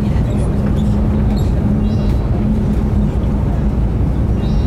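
Steady running rumble of a high-speed train heard from inside the passenger cabin, with a low hum that comes and goes.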